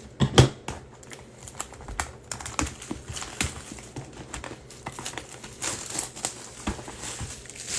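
Trading-card hobby box being unwrapped and opened by hand: crinkling wrapper and cardboard handling in a string of small, irregular clicks and rustles.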